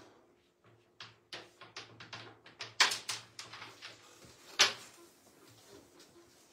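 Carrom striker and carrom men clacking against each other and the board's frame during a shot: a run of sharp clicks from about a second in, with two loud cracks about three and four and a half seconds in.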